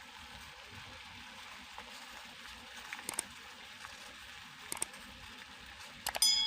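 A pot of water simmering on the stove, a steady soft hiss with a few faint ticks. Near the end comes a metal clink that rings briefly.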